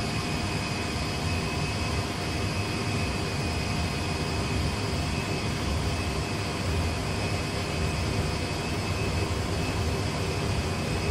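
Airbus A320 full flight simulator reproducing jet engines at takeoff thrust with runway rumble during the takeoff roll: a steady noise over a low rumble, with a thin high whine held level.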